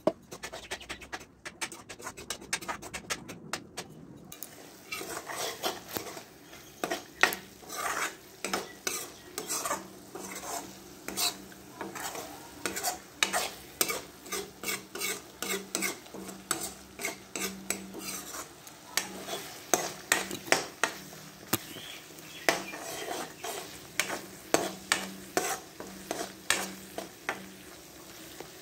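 Metal spatula scraping and knocking against a steel kadai as masala paste is stir-fried in oil, in repeated strokes about two a second over a soft sizzle. The masala is being fried down until cooked through.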